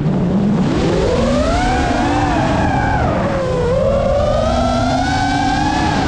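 Motors and propellers of a Geprc Mark 5 FPV quadcopter whining in flight. The pitch dips, climbs about a second in, falls again past three seconds, then rises as the throttle changes, over a steady rushing noise.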